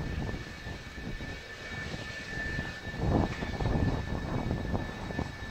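Twin J79 turbojet engines of an F-4EJ Kai Phantom II taxiing: a steady high whine over an uneven low rumble that swells about three seconds in.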